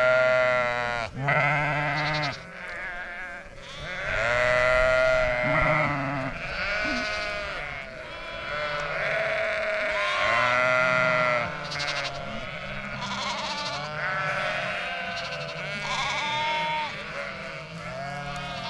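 A flock of sheep bleating, with many calls overlapping and following one after another without a break.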